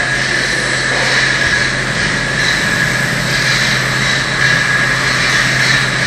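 CNC lathe running, its spindle spinning a metal bar stock workpiece for a pneumatic fitting, with a steady high whine over a steady low hum.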